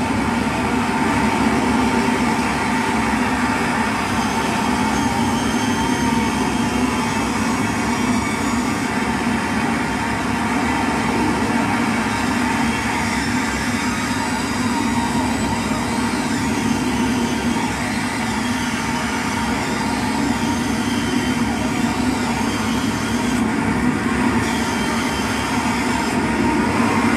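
Dense, steady electronic drone and noise from a live set played through effects pedals and a mixer. Through the middle part a high tone swoops up and down over and over, about every second or two.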